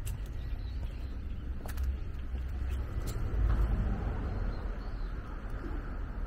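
Low, steady rumble of city traffic that swells a little in the middle, with a few sharp clicks about a second and a half apart.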